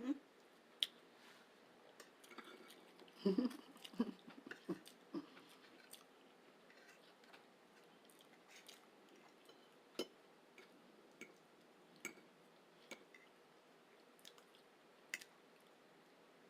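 Close-miked chewing and wet mouth sounds while eating breakfast food: soft smacks and clicks, busiest about three to five seconds in, then scattered single clicks.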